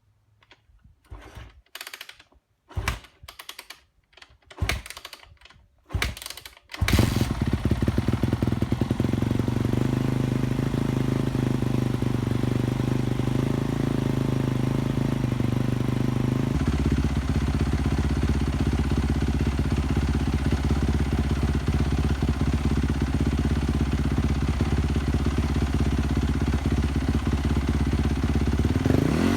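A few scattered knocks and clicks, then a four-stroke motorcycle engine starts about seven seconds in and idles steadily. Its idle note shifts lower partway through, and it begins to rev up at the very end.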